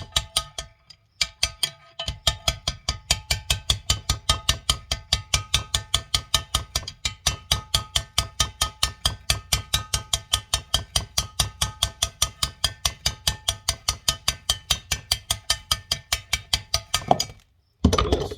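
Rapid, steady hammer blows on steel, about four or five a second, driving the last bearing out of a Mahindra 5010 front final drive housing. The metal rings under the strikes, which stop shortly before the end.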